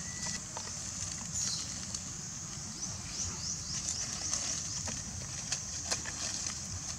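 Dry leaves rustling and crackling in short irregular clicks as a macaque mother and baby shift on the leaf litter, over a steady high-pitched background hiss.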